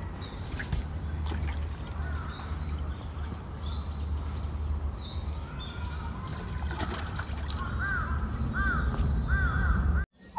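Birds calling outdoors: faint high chirps, then a run of short, clear calls that rise and fall in pitch over the last few seconds, above a steady low rumble.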